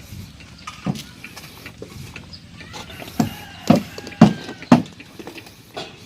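One sharp knock about a second in, then four loud sharp knocks about half a second apart a little past halfway, like repeated hammer blows on a construction site.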